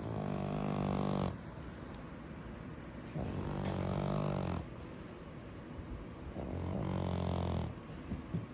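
Snoring: three long, low buzzing snores about three seconds apart, each lasting over a second, with quieter breaths between them. There are a couple of short clicks near the end.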